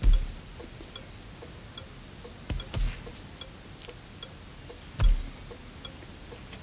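A clock ticking steadily, an even tick-tock with alternating higher and lower ticks. Several dull low thumps stand out over it: one right at the start, two close together about halfway, and one about five seconds in.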